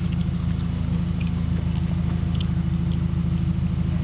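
2016 Subaru WRX's turbocharged 2.0-litre flat-four engine idling steadily, a low even hum.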